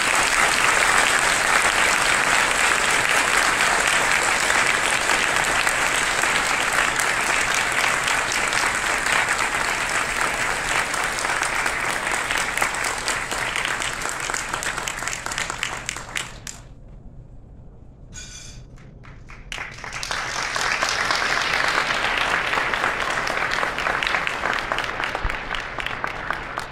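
Audience applauding at length. The clapping dies away about sixteen seconds in, and after a short lull a second round of applause starts and fades out near the end.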